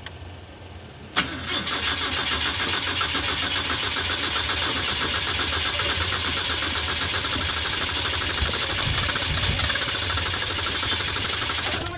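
Starter motor cranking the Mitsubishi Lancer's engine for about ten seconds without it catching. It engages with a sharp click about a second in and stops abruptly near the end. Afterwards the owner blames air in the fuel line and no pump pressure for the failed starts.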